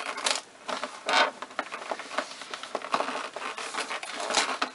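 Cardboard advent calendar and its packaging being handled: a string of irregular scratching, scraping and crinkling as the door is worked open and the gift pulled out.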